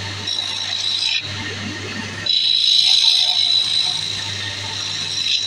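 Wood lathe running with a low steady hum while a hand-held turning tool cuts into the spinning wooden blank, giving a steady high scraping hiss. The cut eases off briefly about a second in, then bites again more loudly.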